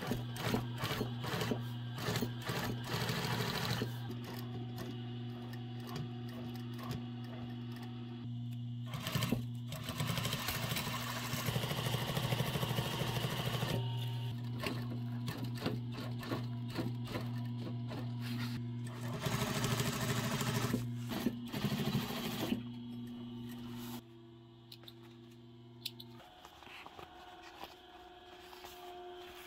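Industrial sewing machine stitching a fabric lining in three runs of rapid stitching, its motor humming steadily between the runs. The motor hum cuts out near the end.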